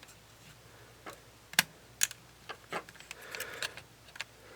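Small scattered clicks and taps of hand tools working on the opened camera's internal plastic and metal parts, about eight in all, the sharpest about one and a half and two seconds in.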